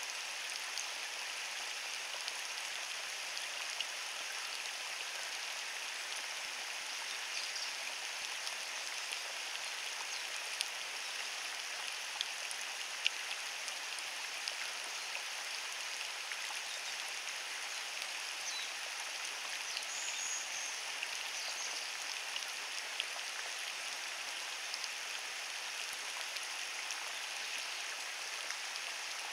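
Steady rain falling, an even hiss with single drops ticking sharply here and there.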